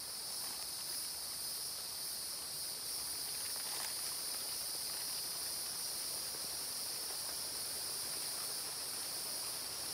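Steady chorus of insects, a shrill high-pitched drone in several bands that carries on without a break.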